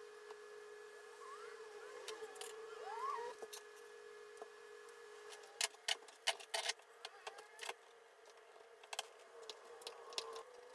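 Faint metallic clicks and knocks of bar clamps being set and tightened on a glued-up wooden frame, most of them in the second half, over a steady faint hum.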